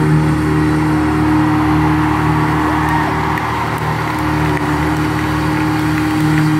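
Live rock band's noise jam through an arena PA: sustained, droning distorted guitar noise and feedback, steady low held tones under a loud wash of noise, with no beat or singing.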